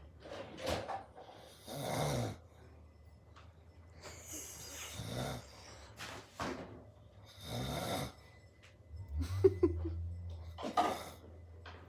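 A man snoring in his sleep: about seven snoring breaths in and out, one every one to two seconds, over a steady low hum.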